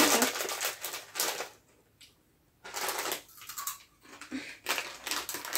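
Plastic crisp packet of Pom-Bär ketchup crisps rustling and crinkling as it is opened, passed and reached into. The rustling comes in short spells, with a brief pause about two seconds in.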